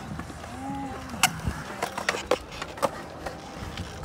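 Skateboard wheels rolling on a concrete bowl, broken by several sharp clacks of the board, the loudest about a second in.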